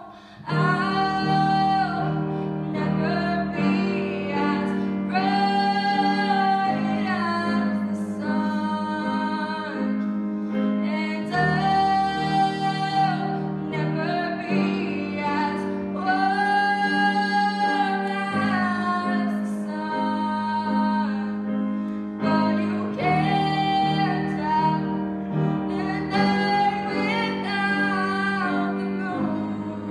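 A girl singing solo while accompanying herself on a grand piano, her phrases broken by short pauses over steady piano chords.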